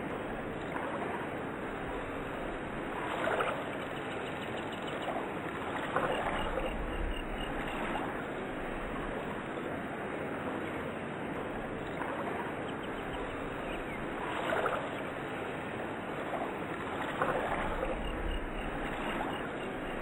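Steady rushing water, like a stream, swelling every few seconds, with a few faint high chirps.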